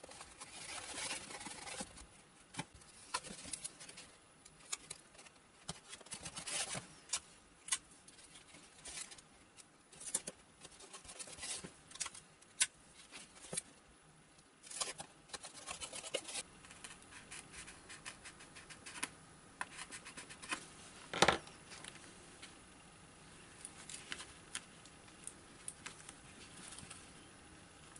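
Hands rubbing and pressing clear adhesive tape onto a foam model-plane wing and handling the aileron: irregular scratching and crinkling with scattered small clicks. One sharp knock about three-quarters of the way through is the loudest sound.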